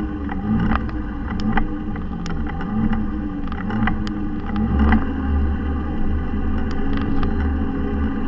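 Razor electric motorcycle riding on pavement: a steady low rumble with a faint motor whine that rises and falls in pitch as it speeds up and slows, and scattered sharp clicking rattles from the bike and its handlebar-mounted camera.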